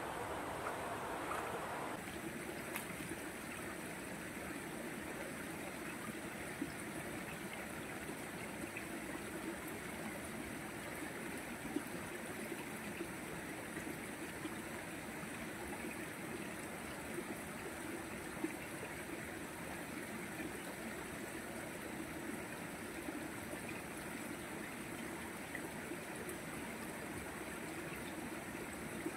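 A shallow rocky stream trickling and flowing steadily, with a few small clicks along the way. The first two seconds hold a different, noisier sound that cuts off abruptly.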